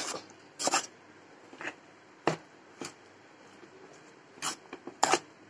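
A spoon knocking and scraping against a metal bowl while fruit salad is stirred, about seven sharp, irregular clinks.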